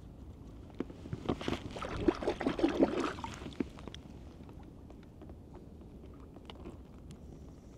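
Medical alcohol poured from a small bottle over a bitten finger, splashing and dripping off the hand for a couple of seconds starting about a second in, followed by a few faint clicks.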